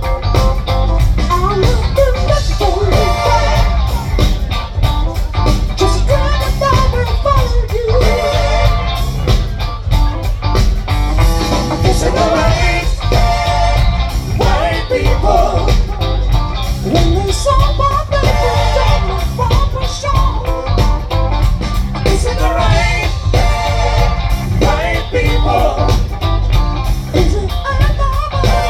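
Rock music: a singer over guitar, with a steady heavy bass line underneath.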